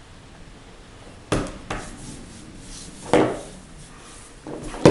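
A toddler's hands slapping a wooden tabletop: four separate knocks, the last and loudest near the end.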